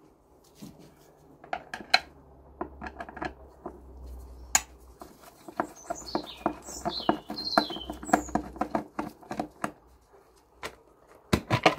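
A screwdriver undoing the screws of a Yamaha TDM 850's airbox lid makes a run of sharp clicks and taps. They are thickest in the middle, with a couple of loud ones near the end. A bird chirps a few times in the middle.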